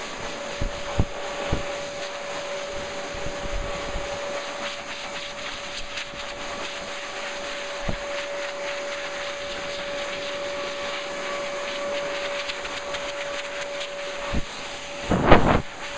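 Pet blow dryer running steadily: a rushing airflow with a constant motor whine, blown into a Bernese Mountain Dog's coat. A few soft knocks, and a brief louder burst of noise near the end.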